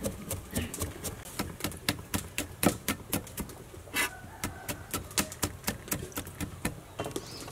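A cleaver chopping garlic and red chillies on a chopping block: a quick, even run of sharp knocks, several strokes a second.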